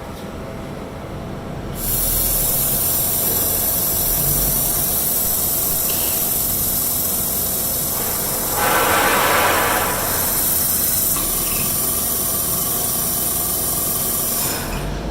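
Ficep Excalibur 12 CNC traveling column drill at work: a steady machine tone under a loud hiss. The hiss starts about two seconds in and stops near the end, swelling briefly around the middle.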